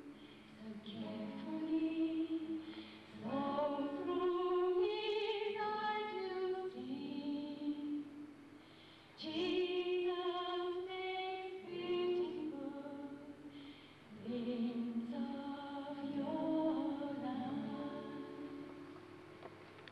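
A woman sings a slow song solo into a microphone, with vibrato on the held notes, in phrases with short breaks between them.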